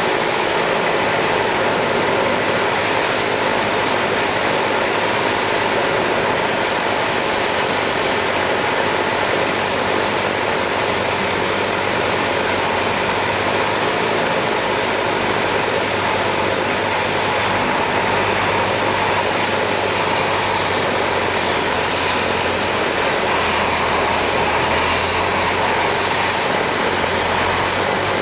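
Steady drone of a Cessna 172's piston engine and propeller, with a low hum that grows stronger in the last few seconds.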